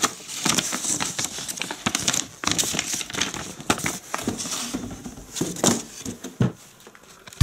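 Packaging being handled and crinkled, with irregular crackling, rustling and scattered light knocks; it goes quieter near the end.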